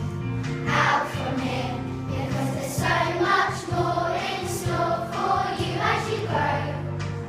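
Children's choir singing a song together over a musical accompaniment.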